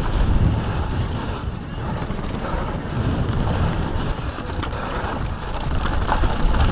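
Wind buffeting the microphone of a camera mounted on a descending mountain bike, over the rumble of knobby tyres rolling on a dirt trail. A few sharp clicks and rattles come from the bike, around the middle and near the end.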